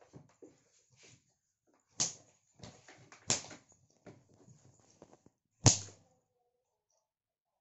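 Light scuffling and small clicks with three sharp knocks, about two, three and a quarter, and nearly six seconds in, the last one loudest.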